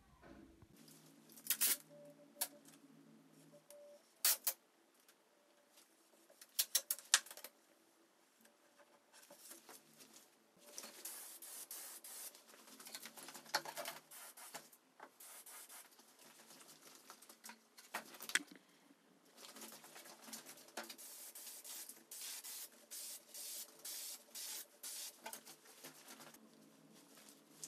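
A few sharp clicks and knocks in the first seven seconds, then, from about ten seconds in, an aerosol can of contact adhesive hissing in short, repeated bursts as glue is sprayed on.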